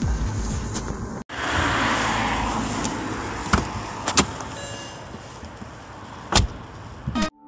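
Car door sound: a rustling hiss for a second or two, then two sharp clicks about three and a half and four seconds in, and a thump about six seconds in.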